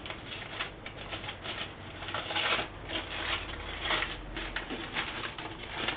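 Aluminium foil crinkling and crackling in irregular rustles as a hot foil-wrapped papillote packet is handled.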